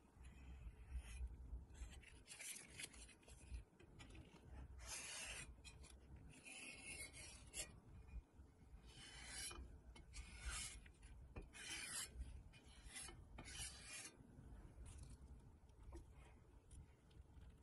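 Faint, irregular scraping strokes of hand work on a small part, about a dozen short strokes with gaps between them, over a steady low hum.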